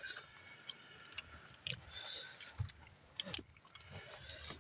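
Faint chewing and eating sounds, with scattered soft mouth clicks and smacks and a few low muffled thumps.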